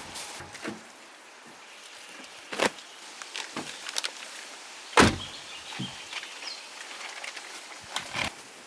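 Irregular knocks and clunks of things being handled and set down in a parked car, with one loud thump about five seconds in.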